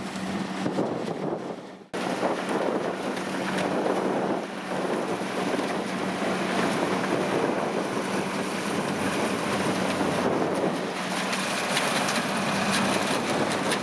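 Kubota DC-70 rice combine harvester running steadily, a constant engine drone under a wide rush of wind on the microphone. The sound drops out for an instant about two seconds in and resumes unchanged.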